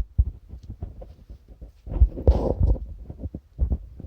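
A run of irregular dull low thumps and knocks, with a louder rustling patch about two seconds in.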